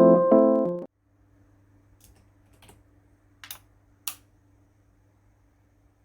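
Piano music that cuts off abruptly about a second in. After it comes a faint steady hum and four short clicks, the last of them the loudest.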